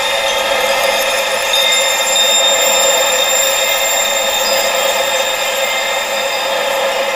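Tinnitus-therapy sound: a steady wind-like hiss with its low end cut away, with many steady high-pitched tones layered over it, unchanging throughout.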